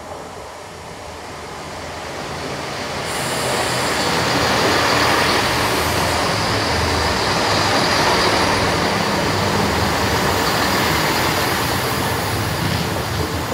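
GWR Class 166 Turbo diesel multiple unit passing close by: underfloor diesel engines running and wheels rumbling over the rail joints. It grows louder over the first few seconds as the train draws alongside, stays loud with a faint high whine on top, then eases near the end.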